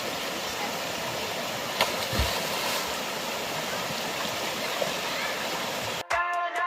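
Steady rush of a waterfall and stream, with a brief knock about two seconds in. Near the end it cuts suddenly to music.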